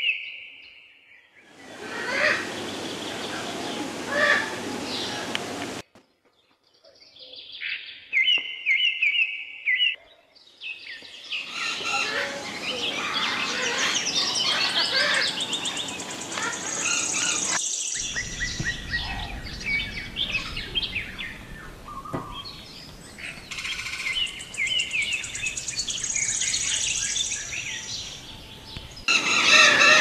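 Parrots and other aviary birds chirping and calling in a dense chorus, with short repeated calls. The sound comes in several stretches that cut in and out abruptly.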